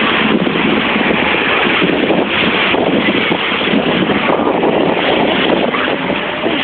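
Steady rushing noise of wind on the microphone and waves washing in shallow sea water.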